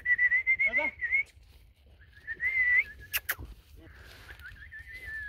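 A person whistling a long, slightly wavering note, broken off and taken up again three times, as a signal to the hunting dog. Two sharp clicks come about three seconds in.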